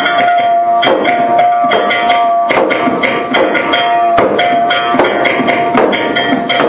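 Music with a steady percussive beat: sharp wood-block-like hits about every 0.8 s over a held tone and sustained pitched notes.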